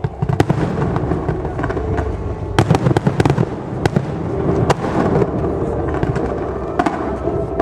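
Fireworks display: shells bursting in a steady rumble, with many sharp bangs and cracks on top, coming thick and fast about two and a half to three and a half seconds in.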